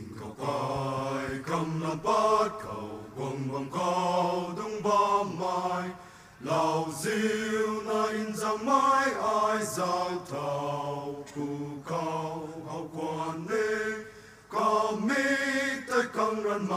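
A mixed choir of men and women singing in parts, in long sustained notes, with brief breaks between phrases about six and fourteen seconds in.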